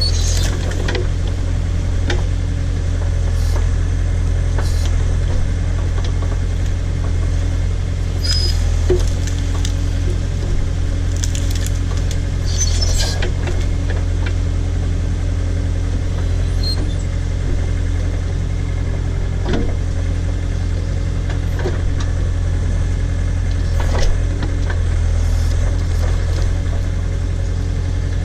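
Case/Davis D100 backhoe's engine running steadily, with scattered short knocks and clicks from the bucket digging at a tree stump.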